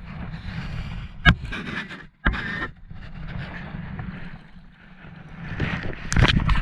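Handling noise on a small fishing boat: rustling and scraping, with one sharp knock about a second in and a short scrape just after two seconds.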